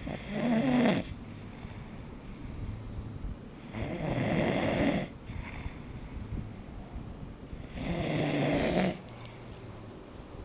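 A person snoring: three loud snores, each about a second long and roughly four seconds apart, with quieter breathing between them.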